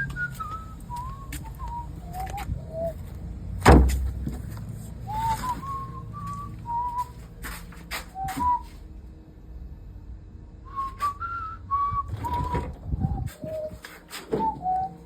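A person whistling a tune in phrases of clear notes that step downward in pitch, mixed with scattered clicks and knocks and one loud thump about four seconds in.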